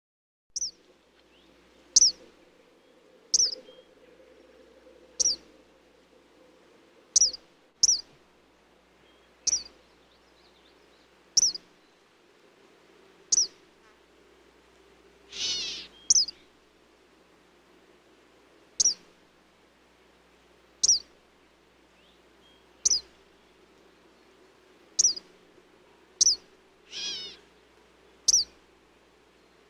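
Eastern kingbird calling: short, sharp, high single notes repeated about every two seconds, with two longer sputtering chatters, one about halfway through and one near the end.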